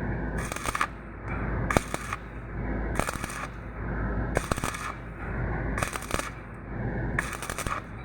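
Welding work: a steady low machine hum with a burst of crackling hiss repeating about every 1.3 seconds, six times, and sharp clicks in between.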